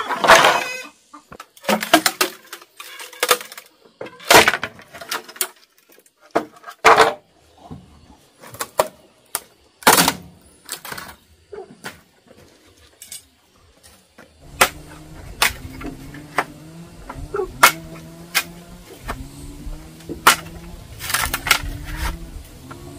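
Bamboo stems cracking and knocking: irregular sharp snaps, some loud, some in quick clusters. About two-thirds of the way in they give way to a steady low drone whose pitch rises in short steps about once a second.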